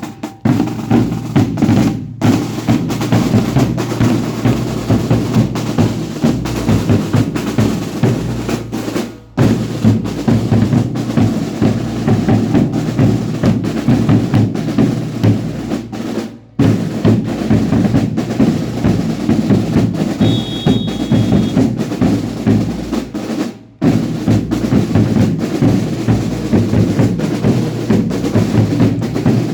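Drums of a baile indio dance troupe beating fast and continuously, with a few brief breaks.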